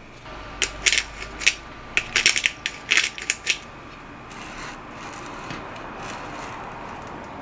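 Pepper mill grinding over a slate plate: a quick, irregular run of sharp crunching clicks lasting about three seconds. A soft steady hiss follows.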